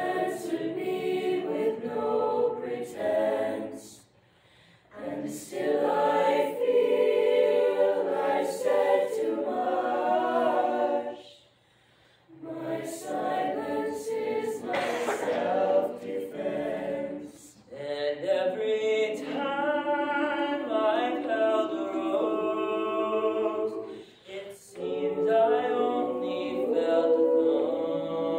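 Mixed high-school chamber choir of men's and women's voices singing a cappella in sustained, slow phrases, with brief breaths between phrases.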